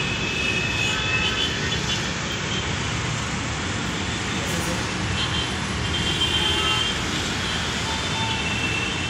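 Steady road traffic noise from a busy city street, with short high horn tones here and there.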